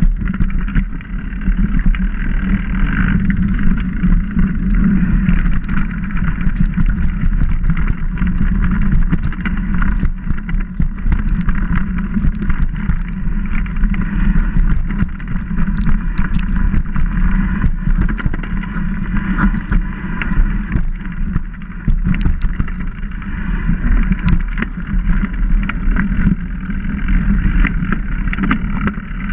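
Mountain bike rolling over dirt singletrack, heard through a camera mounted on the bike: a steady rumble of tyre and frame vibration with wind on the microphone, and many small clicks and rattles as the bike hits bumps.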